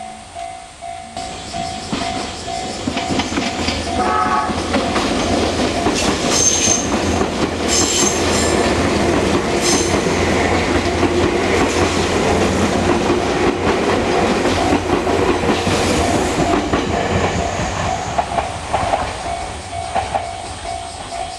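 An electric train runs over a Japanese level crossing, its wheels rattling over the rail joints, the noise building in the first few seconds and fading near the end. Throughout, the crossing's electronic alarm bell keeps ringing at about two strokes a second. A short higher tone sounds about four seconds in.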